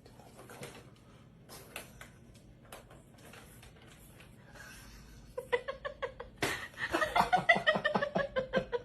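A few faint knocks and rustles, then about five and a half seconds in, rapid high-pitched laughter that gets louder over the last two seconds.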